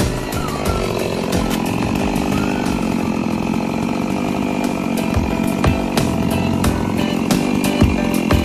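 Two-stroke chainsaw running steadily at high revs, cutting through melaleuca wood.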